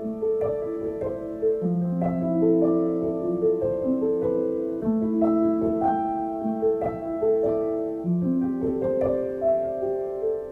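Background instrumental music: a piano melody of held notes that step from one pitch to the next.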